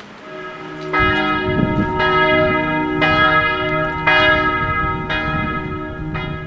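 Church bell tolling, six strikes about a second apart, each one ringing on into the next.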